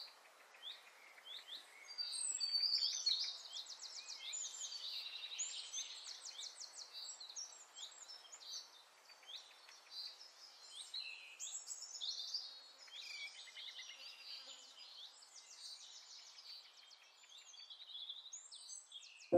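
Small birds chirping and trilling, a dense chorus of quick high calls that swells about two seconds in and carries on over a faint hiss.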